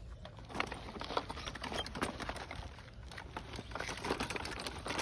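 Plastic toy tricycle wheels rolling over loose gravel and dirt: an irregular stream of small crunches and crackles.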